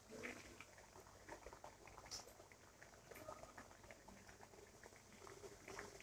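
Breaded chicken nuggets deep-frying in hot oil in a frying pan: faint sizzling with scattered small pops and crackles.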